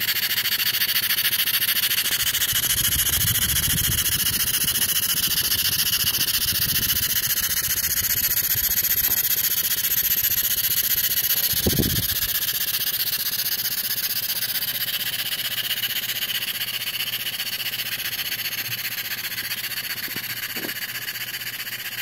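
Stuart 10V model steam engine running fast on compressed air, its exhaust making a steady rapid hiss. A soft thump comes about halfway through, and the hiss eases a little toward the end.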